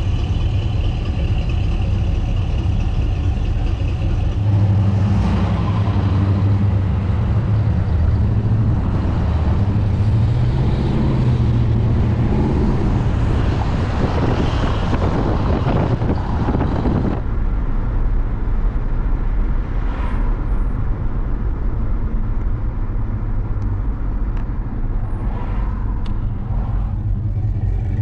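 Car engine running with road noise, a steady low drone. From about five seconds in it grows louder and rougher, then drops back suddenly about seventeen seconds in.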